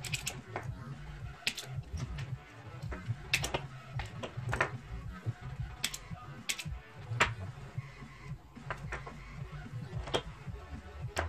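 Irregular sharp clicks and taps of hand tools and small LED bulb parts being handled on a worktable, roughly one a second at uneven spacing.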